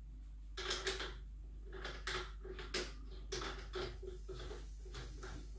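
A quick, irregular run of light clicks and taps from small parts being handled at a PCP air rifle's fill port, as the fill adapter comes off and the port cover is worked back into place.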